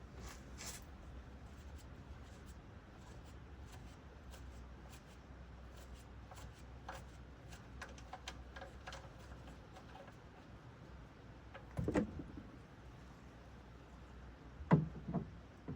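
Faint scattered clicks and rustles of things being handled, with a dull knock about twelve seconds in and another, louder one near the end.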